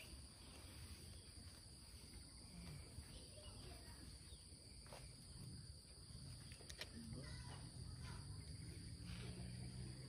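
Faint, steady high-pitched drone of insects, with a low hum joining in about seven seconds in.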